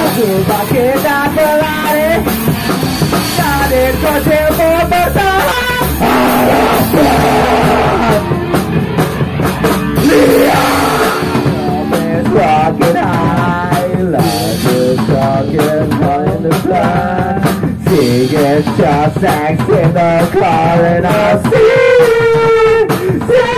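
A rock band playing loud and without a break: a full drum kit, electric guitar and bass, with a wavering lead melody over them.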